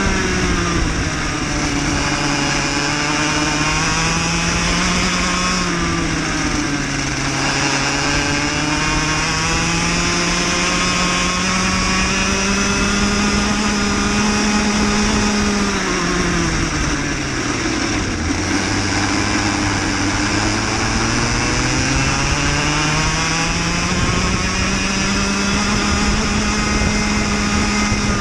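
Cadet kart engine heard from on board, its pitch dropping as the kart slows for corners and climbing again on the straights. The deepest drop comes about two-thirds of the way through, followed by a long climb back up.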